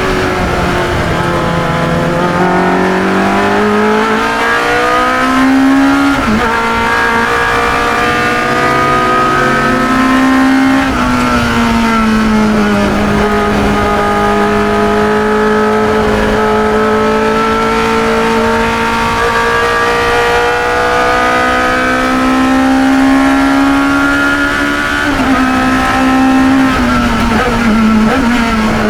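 Onboard sound of a 1972 Chevron B21 2-litre sports racing car's engine at racing speed. The revs climb and drop sharply about six seconds in, as on an upshift. They climb and fall again near eleven seconds, hold at a steady pitch through the middle, and fall once more near the end.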